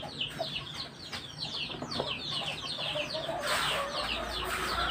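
Chicks peeping over and over, several quick falling peeps a second. About three and a half seconds in, a rustling noise from the camera being moved joins in.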